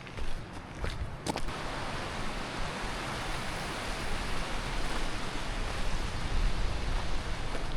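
Steady rushing of a mountain stream or waterfall, growing slowly louder, with a few footsteps near the start.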